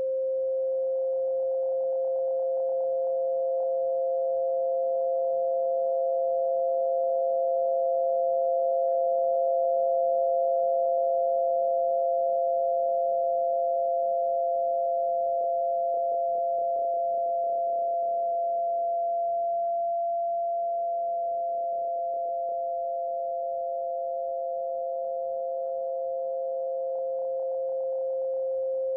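Synthesized tinnitus masking tone: two steady pure tones, a strong mid-pitched one and a fainter, slightly higher one, held unbroken. The loudness swells and dips slowly.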